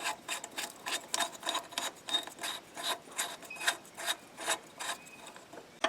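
Power steering pump pulley puller being worked: a rapid, even train of metallic clicks and rasps, about three to four a second, as the forcing screw is turned down to draw the rusted pulley off its shaft.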